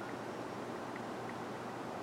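Steady background noise: an even hiss with no distinct events.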